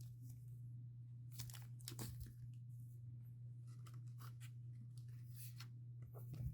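Faint tearing and crinkling of a Pokémon card blister pack's cardboard and plastic packaging being opened by hand, in scattered short rustles over a steady low hum.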